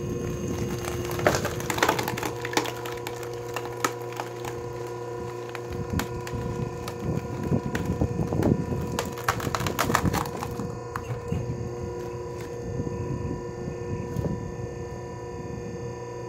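Electric log splitter's motor humming steadily as a large log is forced apart, the wood cracking and splintering again and again, most of it between about six and ten seconds in.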